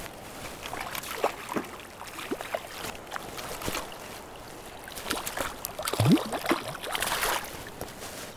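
Shallow river water splashing and gurgling as a hooked salmon thrashes and is brought to the net, with irregular small splashes and the biggest splash about six seconds in.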